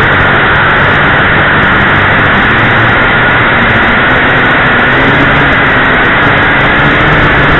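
JRC H8C quadcopter's motors and propellers in flight, recorded close up by the drone's onboard camera: a loud, steady whirring rush, with a faint motor tone underneath that shifts a little in pitch.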